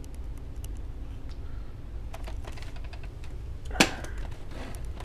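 Hard plastic Nerf dart guns being handled: light scattered clicks and taps, and one sharp clack a little under four seconds in.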